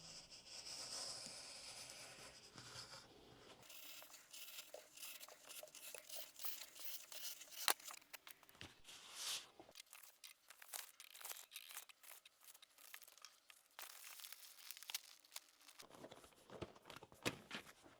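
Quiet hand work with a steel Veritas PM-V11 chisel: about three seconds of steady scraping hiss, then a long run of short, crisp scrapes and clicks with a crinkly, tearing quality.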